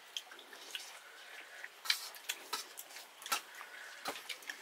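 Hands mixing and scooping rice on steel plates: scattered soft clicks and light clinks of fingers and steel dishware, with wet squishing of rice being eaten by hand.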